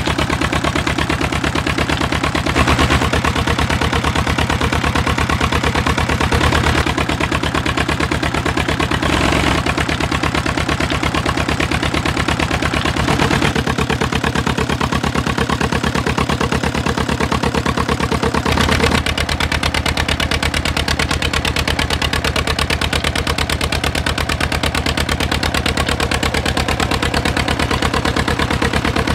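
Old 25 hp Peter stationary diesel engine running steadily, its firing beats coming as an even, rapid pulse.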